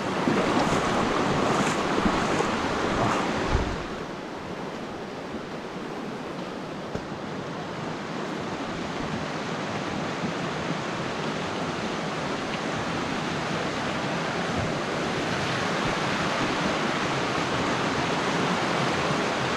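Fast, muddy creek water rushing over rocks. It is loud close by for the first few seconds, drops off suddenly, then slowly grows louder again toward the end.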